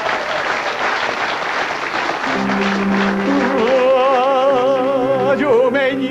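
Audience applause over stage-band music, then about two seconds in the band holds a sustained chord and a high melody with a wide vibrato enters: the introduction to the next song.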